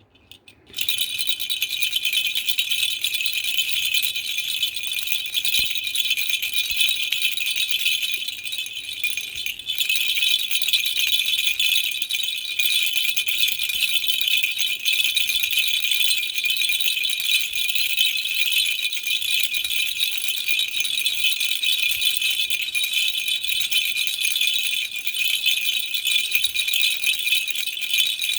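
A toy rattle shaken continuously, giving a dense, bright rattling that starts about a second in and eases briefly about a third of the way through.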